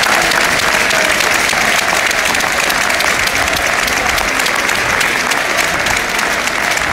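Large football stadium crowd applauding, thousands of hands clapping in a loud, steady wash of sound.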